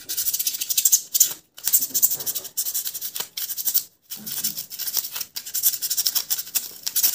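A utility knife blade sawing through polystyrene foam (thermocol) in quick back-and-forth strokes, a dense scratchy, rattling rasp with two brief pauses, about a second and a half in and again about four seconds in.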